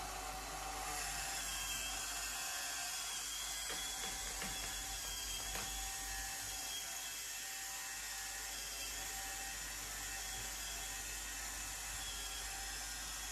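Small motor and gear train of a Meccano Unimog 411 model running with a steady high whine while raising its tipper body. A few faint ticks from the gearing come in the middle.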